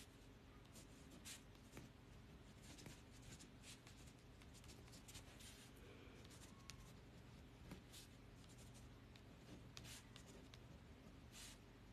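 Faint scratching of a pen writing on paper, in many short strokes, over a low steady room hum.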